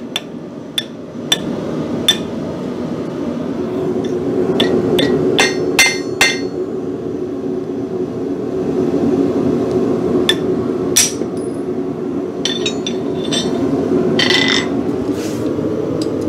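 Steel tools on an anvil and nail header: scattered sharp metallic strikes and clinks, with a quick cluster about five seconds in and more near the end. A steady low rushing noise runs underneath.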